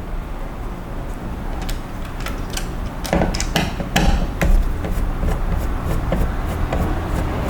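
Clicks and knocks of a screwdriver and small metal parts as the stock cooler brackets around a motherboard's CPU socket are unscrewed and taken off, with a cluster of sharper knocks about three to four and a half seconds in.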